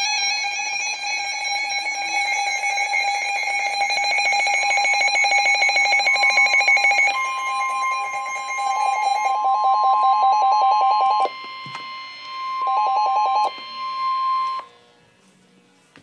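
Weather alert radio sounding a warning alert: a rapidly pulsing electronic alarm beep over the steady NOAA Weather Radio warning alarm tone, the signal that a warning, here a severe thunderstorm warning, is being broadcast. The tones cut off suddenly about fifteen seconds in.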